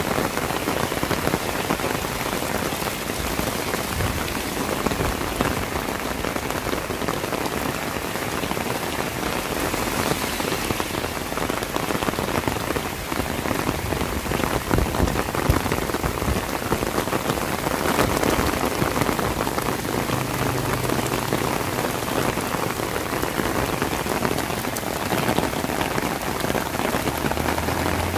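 Steady rain falling on a paved street and the ground around it: a constant, even hiss with scattered drops. A faint low engine hum comes in near the end.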